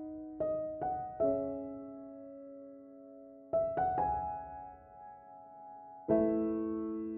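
Background music: slow, soft piano, a few notes and chords struck at a time and left to ring out.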